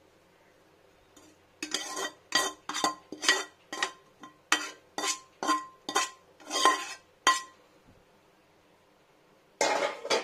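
Metal spatula scraping and knocking against a metal wok as fried greens are scraped out onto a brass plate: a quick run of about a dozen ringing clinks and scrapes, roughly two a second, then one longer scrape near the end.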